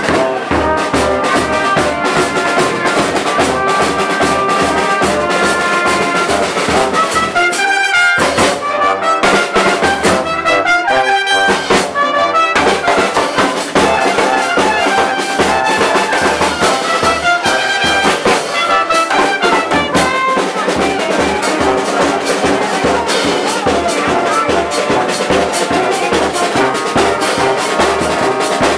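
Street brass band playing lively music: brass instruments carrying the tune over snare and bass drum keeping a steady beat.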